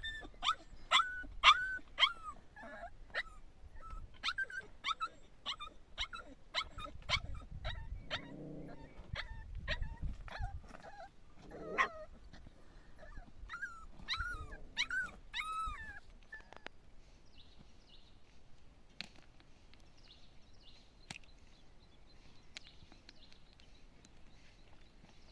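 A dog yelping and whimpering: a run of short, high calls, about two a second, that stops about two-thirds of the way through.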